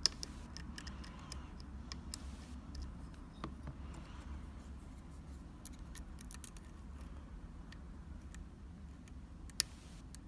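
Small irregular metallic clicks and ticks of a lock pick and tension tool working the pins of a Sargent Keso mortise cylinder, over a faint low hum. One sharp click comes right at the start and another near the end.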